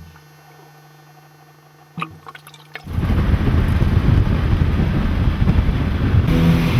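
A quiet underwater-camera sound with a faint steady hum and a few clicks about two seconds in. Then, nearly three seconds in, loud rushing wind and road noise from inside a moving vehicle cuts in.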